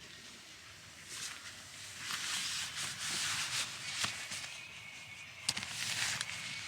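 Irregular bursts of rustling and rubbing, with a couple of sharp clicks in the second half.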